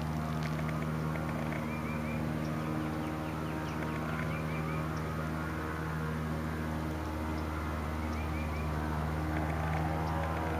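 An engine running steadily at one constant speed, with short chirping bird calls over it now and then.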